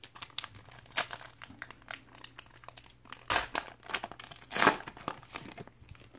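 Foil wrapper of a Mosaic basketball card pack crinkling and crackling as it is torn open by hand, in a run of irregular crackles. The loudest come about three and a half seconds in and just before five seconds.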